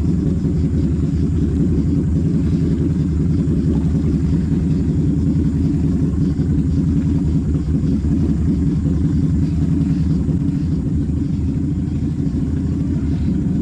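ATV engine idling, a steady low engine note with no revving.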